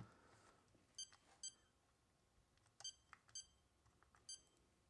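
iCharger S6 LiPo charger beeping at each button press while a charge program is selected and started: five short, high beeps, coming as two pairs and then a single one.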